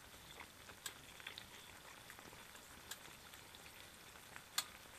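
Beef bulgogi sizzling faintly in oil on an electric hot plate: a low steady hiss with scattered sharp pops, the loudest about four and a half seconds in.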